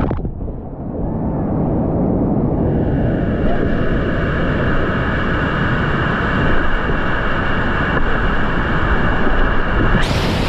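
Roar of whitewater rapids close around a kayak. It is muffled for the first couple of seconds while the camera is under water, then a steady loud rush of fast water. Near the end comes a sudden bright splash as water breaks over the camera.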